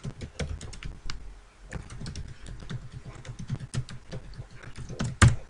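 Computer keyboard typing: a run of quick, irregular keystrokes, with a louder click about five seconds in.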